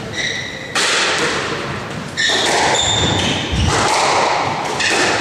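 A squash rally in a reverberant court: the ball is struck and thuds off the walls several times, with short high shoe squeaks on the wooden floor in between.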